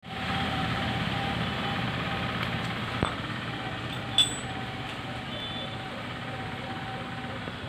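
Steady outdoor background noise, with a short sharp click about three seconds in and a louder, ringing click a second later.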